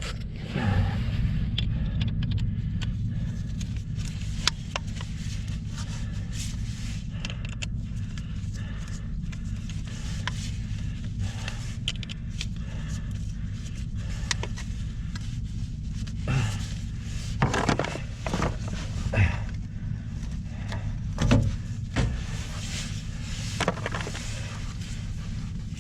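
Scattered scrapes, clicks and knocks of things being handled and moved, busiest in the second half, over a steady low hum.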